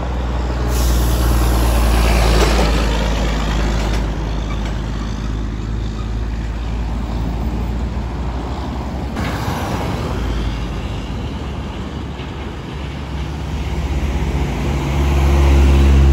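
Heavy diesel trucks and other road traffic passing on a street, with a steady low engine drone. A brief hissing rush comes about two seconds in, and a truck's engine drone swells loudest near the end.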